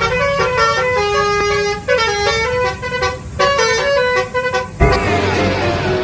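Bus telolet horn (Basuri type) playing a quick multi-note melody of stepped tones over a low rumble. About five seconds in, a sudden rushing noise cuts in.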